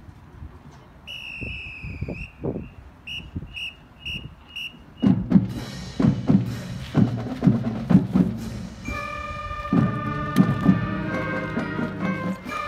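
A whistle gives one long blast, then a few quick, evenly spaced short blasts to count off a marching band. About five seconds in the band's drums start playing, and about nine seconds in the brass and winds come in with held chords.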